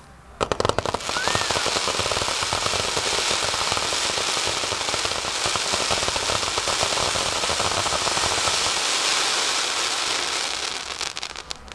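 Fireworks: a quick cluster of sharp bangs just under half a second in, then a dense, continuous crackle of many tiny pops for about ten seconds, thinning out near the end.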